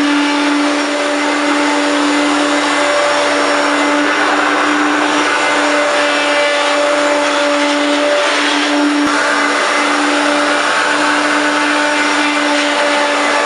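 Hoover Turbopower 1 U2798 vacuum cleaner running steadily: a constant motor whine over the hiss of rushing air.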